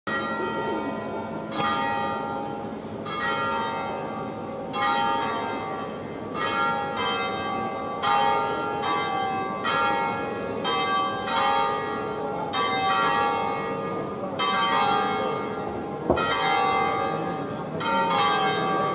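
Three swinging church bells hung on large wheels, pealing full-circle (a distesa): clapper strokes about once a second in an uneven, overlapping pattern, each stroke ringing on into the next.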